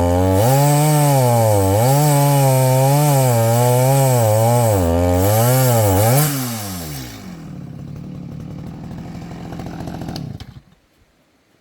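Chainsaw engine running at high revs through a cut, its speed dipping and rising about once a second under load. About six seconds in it drops to idle, then cuts off near the end.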